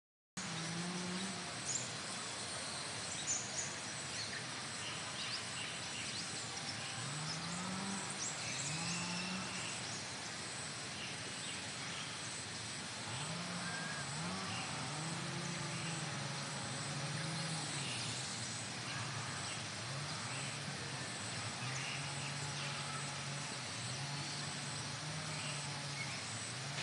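Outdoor garden ambience: a steady hiss with scattered high chirps from insects and birds, and a distant motor vehicle engine that rises in pitch and drops back several times, then runs at a steady pitch in the second half.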